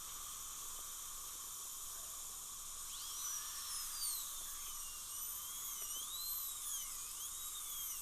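High-speed dental drill whining over a steady hiss, its pitch dipping and rising from about three seconds in as it cuts. It is drilling into a cemented implant crown to reach a loose abutment screw.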